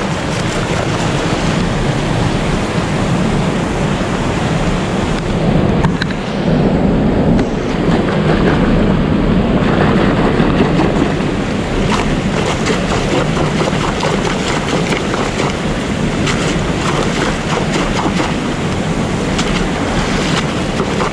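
Rushing, foaming water churning steadily, with repeated sharp splashes and clicks as a mesh bag of small oysters is dashed in the current to wash the mud off them.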